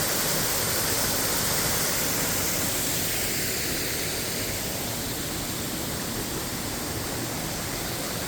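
Waterfall with a steady, continuous rush of falling water, easing a little about halfway through.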